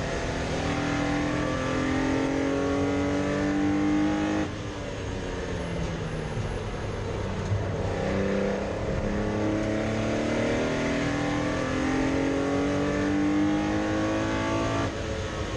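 Porsche 964 race car's air-cooled flat-six engine under hard acceleration: its pitch climbs for about four seconds, drops sharply as the driver lifts, then climbs again in one long pull before falling away near the end.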